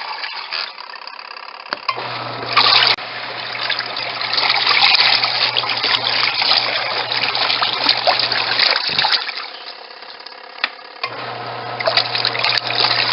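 Twin tub portable washing machine churning rinse water and clothes: the wash motor hums under the sloshing water, stops for about two seconds, then starts again, as the wash tub's agitation reverses.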